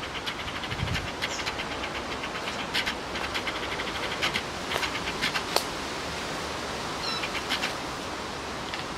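Camera lens autofocus motor hunting, picked up by the camera's own microphone: repeated bursts of rapid fine ticking over a steady hiss, thinning out after about six seconds. A dull thump about a second in.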